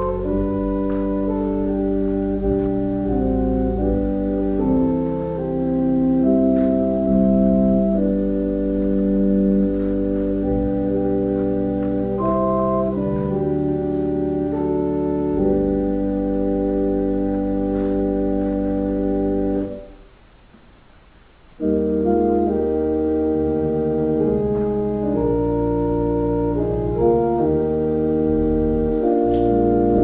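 Church organ played in sustained, held chords that change every second or two. The playing breaks off for about two seconds roughly two-thirds of the way through, then resumes.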